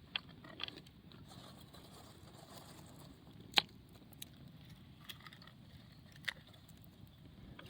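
Campfire crackling faintly, with a few scattered sharp pops; the loudest pop comes about three and a half seconds in.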